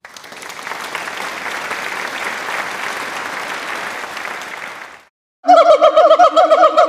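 Monkey sound effect: a dense, noisy chattering din for about five seconds. After a brief break comes a loud run of quick, wavering pitched calls, about six a second.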